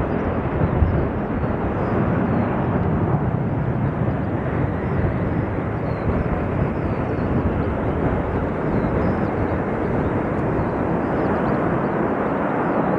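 Twin jet engines of a Sukhoi Su-35 fighter at takeoff thrust: a steady, dense rumbling noise as the jet rolls down the runway and climbs away.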